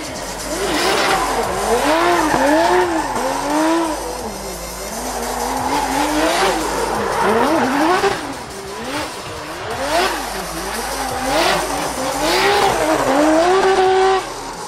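Drift cars revving hard while sliding, with engine pitch surging up and down about once a second and tyres screeching and smoking on the tarmac.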